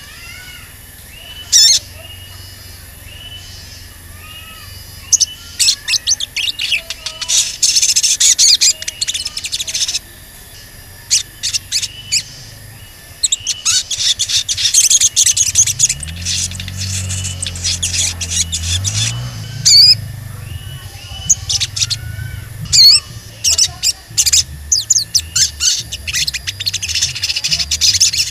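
Male olive-backed sunbird (sogon) singing: strings of sharp, high 'cuit cuit' chirps and fast trills that come in dense bursts several times, with quieter short repeated call notes between them.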